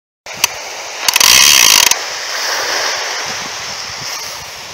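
Big-game fishing reel buzzing as line is pulled off the spool against the clicker and drag: a hooked shark taking line on its run. The buzz is loudest for under a second about a second in, then runs on steadier and slowly fades, with a sharp click near the start.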